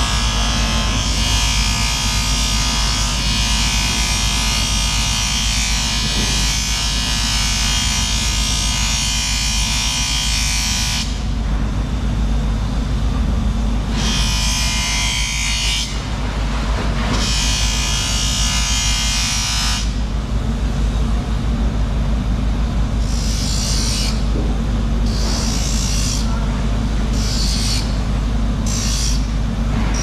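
Bench grinder motor running with a steady hum while a knife blade is ground against the spinning wheel: a long continuous grinding hiss for the first ten seconds or so, then a few shorter passes, ending in a string of brief touches about once a second.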